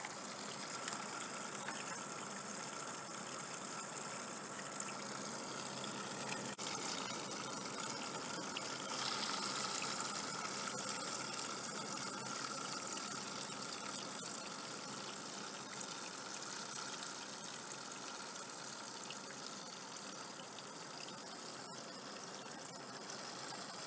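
Quiet, steady running of a custom PC water-cooling loop: the pump and coolant churning in the reservoir, with a faint steady whine.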